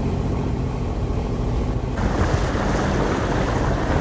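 A sailing yacht's engine running steadily while motoring, a low hum under the rush of water and wind. About halfway the hiss of wind and water grows louder.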